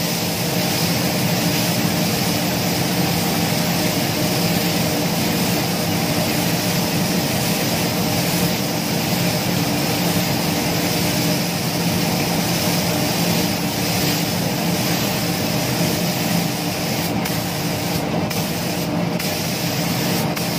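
Gravity-feed air spray gun hissing steadily as it lays a thin first coat of paint at about half trigger, with a steady low motor hum underneath. The hiss briefly breaks a few times near the end, between passes.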